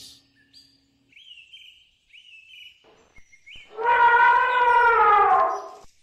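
Elephant trumpeting: one loud call of about two seconds starting near the middle, falling in pitch as it ends. Faint bird chirps come before it.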